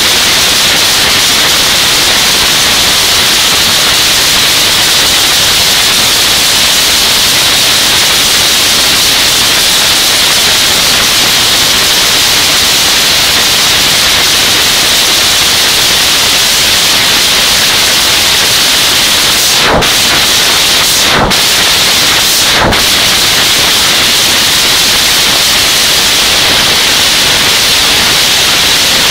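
Supercharged Top Fuel nitromethane V8 running on its warm-up stand, so loud that the recording is overloaded into a steady, hiss-like noise. Three brief breaks in the sound come a little past two-thirds of the way through.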